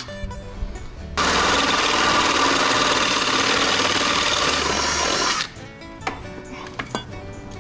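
Ryobi cordless drill boring through a thin metal sheet, running loud and steady for about four seconds starting about a second in, over background music.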